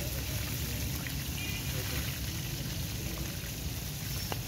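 Chicken leg pieces deep-frying in a large pan of hot oil: a steady sizzle and bubbling over a low steady rumble, with one sharp click about four seconds in.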